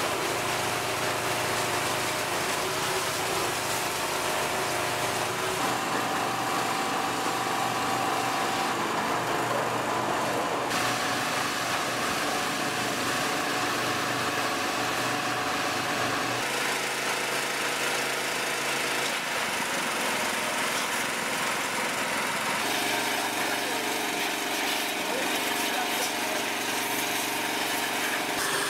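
Engines running steadily under the hiss of high-pressure water spray. The pitch of the hum shifts abruptly several times.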